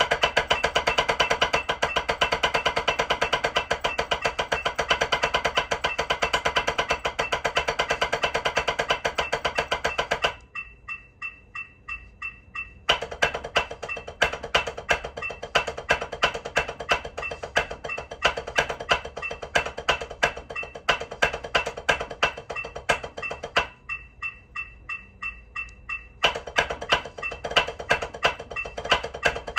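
Wooden drumsticks playing fast, even strokes on a drum practice pad over a metronome clicking at 180 beats per minute. The sticking stops twice for a couple of seconds, leaving only the metronome's ticks, about three a second.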